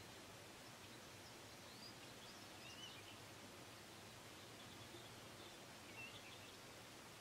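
Near silence: a steady faint hiss of room tone, with a few faint, high, short chirps of birds, about one to three seconds in and again near six seconds.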